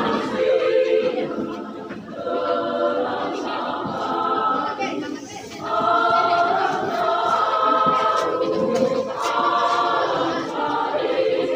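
Women's choir singing in long held phrases, with short breaks between phrases about two and five and a half seconds in.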